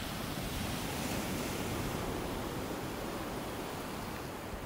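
Steady rushing hiss of seawater heard underwater, without a clear pitch or rhythm.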